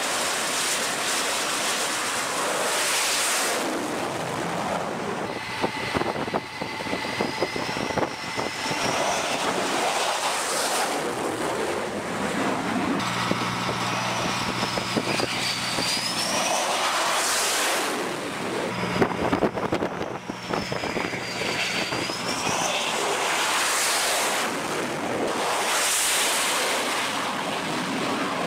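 Twin-engine jet noise from F/A-18F Super Hornets running at high power as they launch from a carrier deck. The roar swells to a peak about every seven to eight seconds as each jet goes, with a turbine whine that slides down and back up in pitch.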